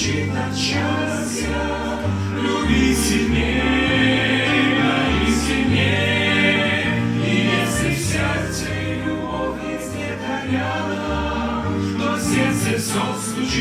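Christian gospel-style song: a choir singing over an instrumental accompaniment with a bass line that steps between held notes.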